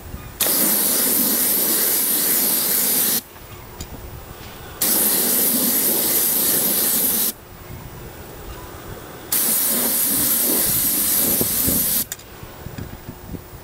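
Paint spray wand hissing in three bursts of about three seconds each, separated by short pauses, as it sprays acrylic latex roof coating onto roof tiles.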